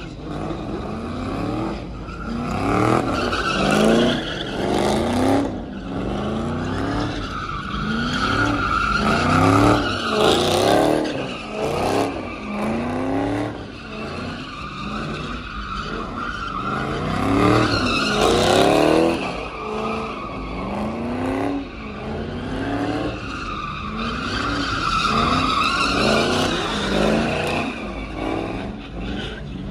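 A car doing donuts: its engine revs up again and again, about once a second, while the rear tyres squeal and skid on the asphalt. The squeal swells twice, around a third of the way in and again near the end.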